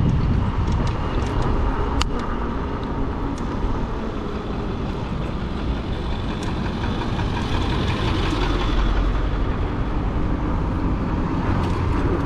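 Wind rumble and road noise from riding an e-bike along a street, with traffic sound, steady throughout, and a single sharp click about two seconds in.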